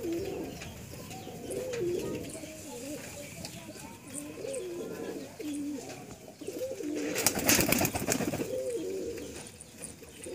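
Domestic pigeons cooing over and over, each coo a low call that wavers up and down in pitch. A loud rustle lasting about a second comes roughly two-thirds of the way through.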